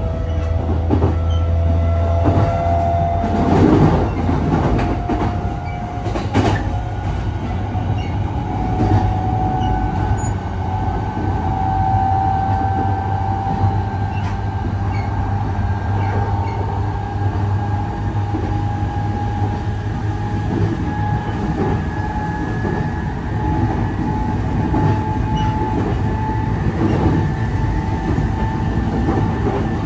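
Running sound inside a JR East E531 series electric train: the traction motor whine climbs slowly in pitch as the train gathers speed, over a steady rumble of the wheels on the rails. A few clacks come from wheels crossing rail joints.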